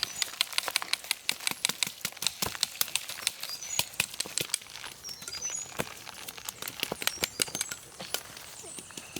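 Dense, irregular clicking and crackling, many sharp ticks a second, with short high bird chirps over it.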